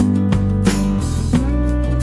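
Background music led by a plucked guitar, notes changing every half second or so.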